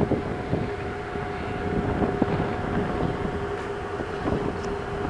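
Cruise ship's machinery giving a steady hum, with wind buffeting the microphone and a few light knocks.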